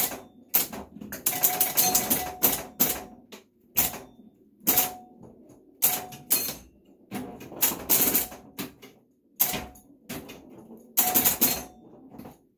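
Super Flite electromechanical pinball machine in play: sharp clacks from its solenoids, relays and advancing score reels, some single and some in rapid clusters. A short ringing chime tone follows many of the hits.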